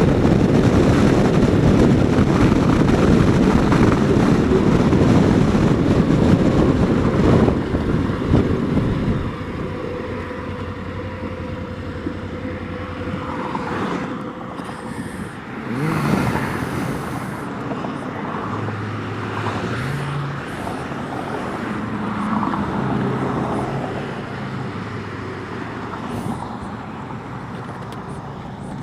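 Suzuki V-Strom DL1000 V-twin motorcycle being ridden, with loud wind rush on the helmet microphone for the first nine seconds or so. Then it goes quieter as the bike slows, and the engine's low note shows through, shifting up and down in steps.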